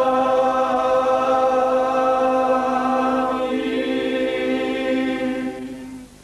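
Greek Orthodox church chant: voices hold one long sung note, its colour shifting slightly about three and a half seconds in, then fading away near the end.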